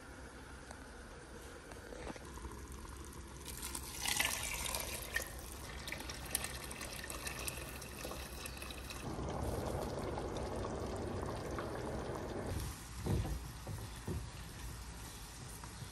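A stream of water poured into a large steel cooking pot of broth, splashing steadily for a few seconds. Near the end, a few light knocks of a wooden spoon stirring onions in a frying pan.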